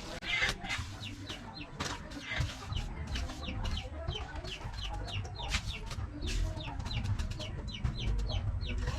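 Chickens clucking, many short calls in quick succession, over a low rumble.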